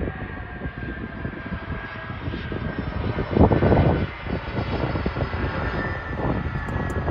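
Airbus A300B4-622R freighter's Pratt & Whitney PW4158 turbofans running with a steady rushing noise and a thin high whine as the jet rolls along the runway, swelling louder about three and a half seconds in.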